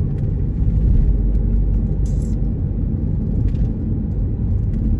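Car cabin noise while driving: a steady low rumble of engine and road, with a brief high hiss about two seconds in.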